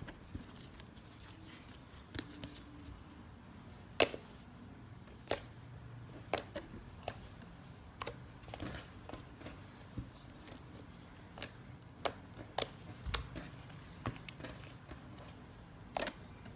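Fluffy slime being pressed, poked and stretched by hand, giving irregular sharp pops and clicks as air pockets in the foamy slime burst.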